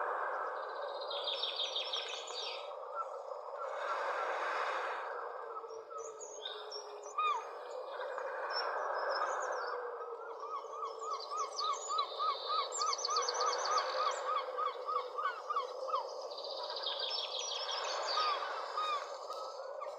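Several wild birds calling and singing over a steady rushing background noise. A fast high trill comes three times, near the start, in the middle and near the end. In the middle a run of quick repeated chirps goes at about three or four a second.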